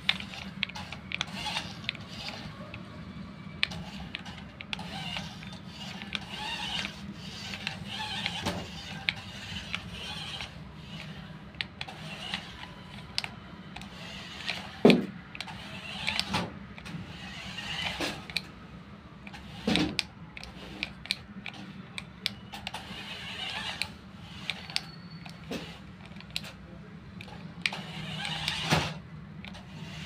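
The small high-speed electric motors and gears of a toy RC F1-style car whir as it drives, rising and easing with the throttle. A few sharp knocks come through, the loudest about halfway through.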